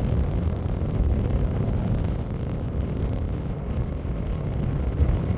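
Low, steady rumble of distant jet airliner engines, mixed with wind buffeting the microphone.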